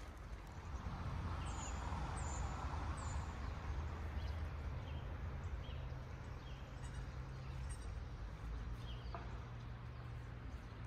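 Quiet outdoor ambience: a low steady hum with faint, short bird chirps repeating now and then, several close together in the first few seconds.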